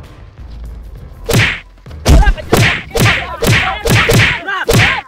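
A rapid series of hard whacks and thuds from a staged beating: about eight loud hits, the first a little after a second in, then roughly two a second until the sound cuts off suddenly.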